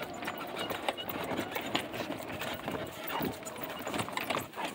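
Two leashed dogs moving about and sniffing in long grass: rustling with irregular clicks, as of leash clips and collar hardware knocking.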